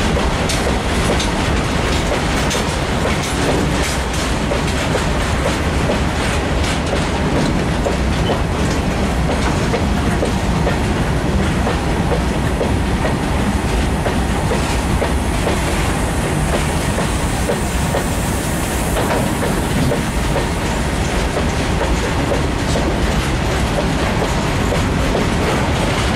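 Open box wagons of a long freight train rolling past close by, their steel wheels running on the rails with a steady rumble and a continual clatter of clicks over the rail joints.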